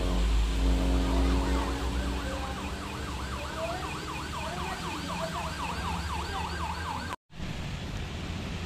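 Minibus's roof-mounted trumpet horn sounding a siren-like warble, its pitch wavering quickly up and down about four times a second, over the low running of the bus's engine. It cuts off suddenly near the end, leaving rain hiss.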